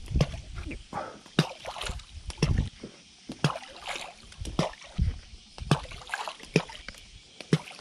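Water lapping against the hull of a small fishing boat, with sharp knocks coming about once a second.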